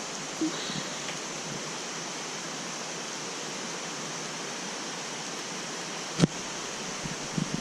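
Steady rushing of a mountain stream, with a single sharp knock about six seconds in.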